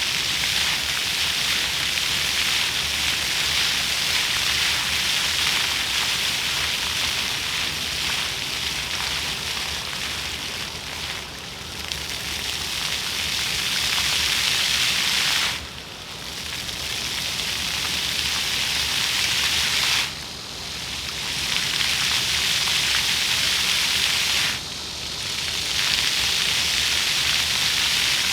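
Floor fountain's water jets splashing onto pavement, a steady hiss of falling water. In the second half the spray cuts off abruptly three times, about four to five seconds apart, each time building back up over a second or two as the jets come back on.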